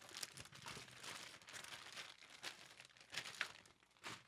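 Small plastic packaging bag crinkling faintly in irregular crackles as it is opened and handled.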